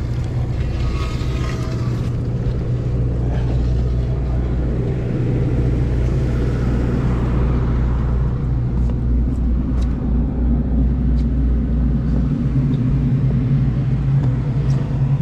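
A sportfishing boat's engine running with a steady low hum.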